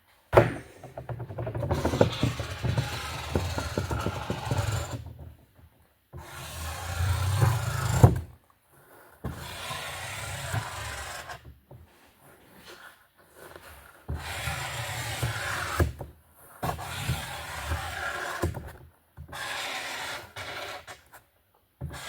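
Felt-tip marker drawing strokes on cardboard: scratchy rubbing in about seven stretches of a few seconds each, every stretch breaking off abruptly.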